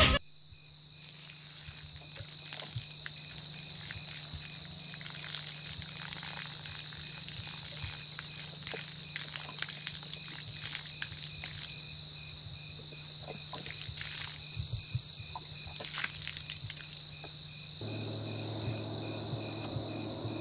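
Crickets chirping in a steady, pulsing trill, with a low steady hum underneath.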